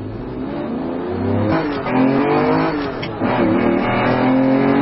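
A car engine accelerating hard, its pitch climbing and dropping back twice, about one and a half and three seconds in, as it shifts up through the gears.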